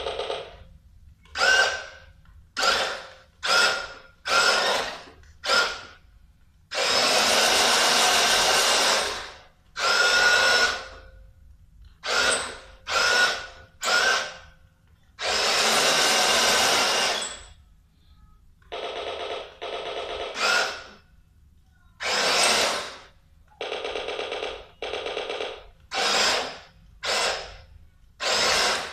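Electric drive motor and gearbox of a 1/6-scale radio-controlled M29 Weasel tracked model whirring in repeated bursts, from short blips to runs of a few seconds, as it is driven in starts and stops.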